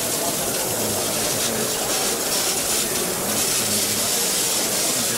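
A steady hiss, strongest in the high range, growing a little brighter about three and a half seconds in.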